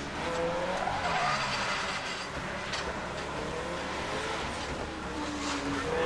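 Nissan Silvia S15's tuned SR20DET turbocharged four-cylinder revving up and down as the car slides on wet tarmac, with tyre noise.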